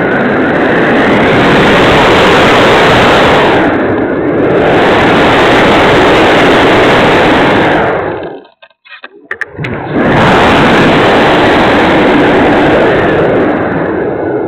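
Loud, rough rush of wind and electric motor noise on a keychain camera's microphone taped to a Radian motor glider in flight, overloaded and distorted. About eight seconds in it cuts out to near silence for about a second and a half, with a few clicks, then comes back.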